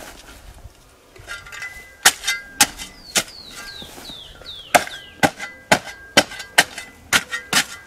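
Hoe blade chopping into dry, clodded soil, about a dozen sharp, irregular strikes starting about two seconds in, as earth is pulled around a newly planted maguey to fill its planting hole.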